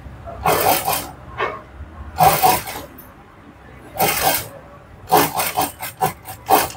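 Cloth and lace rubbing and rustling as they are handled, in separate bursts a second or two apart, then a quick run of shorter rustles near the end.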